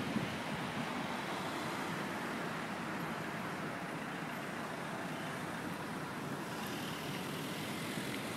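Steady street traffic noise: an even rush of passing cars and tyres with no distinct events standing out.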